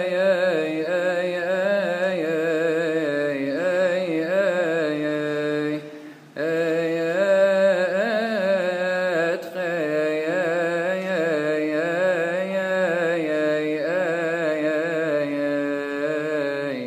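A male voice chanting a Coptic psalm in long melismatic lines, the pitch wavering and turning through ornaments. He breaks off briefly for a breath about six seconds in.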